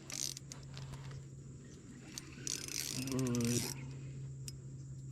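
Small spinning fishing reel being worked, its handle and gears clicking.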